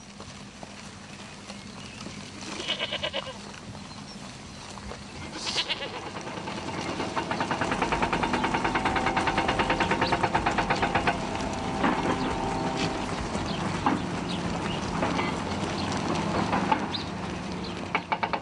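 A herd of goats bleating, several animals calling over one another. The calls are scattered at first and grow louder and denser after about six seconds.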